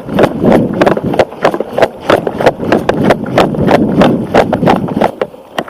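Running footsteps on the ground, about three to four strides a second, with gear rustling along with them. They slow and fade near the end.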